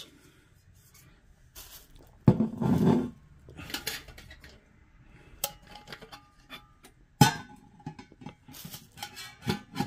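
A stainless-steel perforated utensil holder and a titanium camping cup being set down and stacked on a tabletop. Metal knocks and clinks: a heavier knock about two seconds in, scattered light clicks, a brief faint ringing, and a sharp clank about seven seconds in, followed by small rattles of the cup's folding handle.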